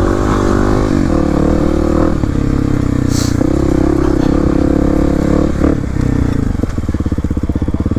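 Kawasaki KLX300's single-cylinder four-stroke engine running at low, steady revs, then dropping to a slow idle near the end, where the separate firing pulses can be heard.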